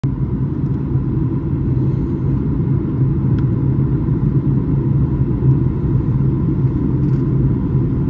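Cabin noise inside a Boeing 737 airliner in flight: the steady low drone of the jet engines and rushing air, with a faint high tone held throughout.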